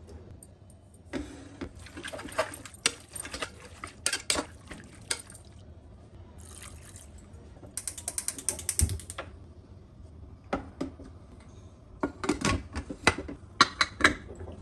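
Metal clinking and scraping in an aluminium Prestige pressure cooker as a spoon adds spices to raw mutton and the meat is mixed. Near the end come sharp clicks as the lid is fitted and the whistle weight is pressed onto the vent.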